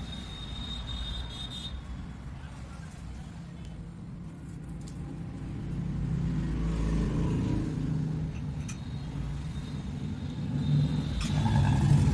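Low rumbling background noise that swells about halfway through and again near the end, of the kind PANN files under road vehicles, with a few faint clicks.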